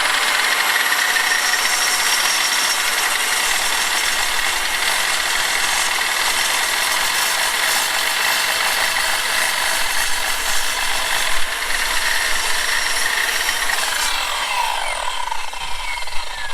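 Electric power saw cutting through a stack of six tongue-and-groove boards at once, running steadily for about fourteen seconds. Near the end the motor winds down with a falling whine.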